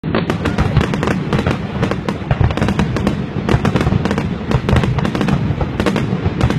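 Fireworks going off in a dense, continuous barrage of sharp bangs and crackles, several every second with no pause.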